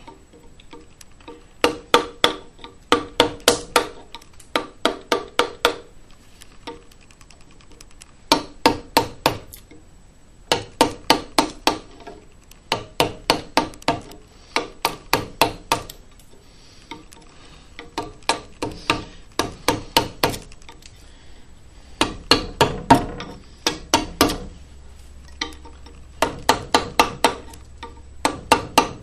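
Mallet blows driving a wide flat carving chisel into walnut, in about ten short bursts of three to six sharp knocks each, a few per second, with brief pauses between bursts.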